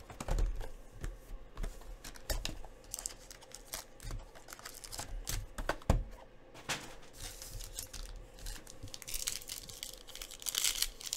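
Plastic wrap torn and crinkled off a sports-card box, with clicks and knocks as the cardboard box is handled and opened. Near the end, a card pack crinkles as it is torn open.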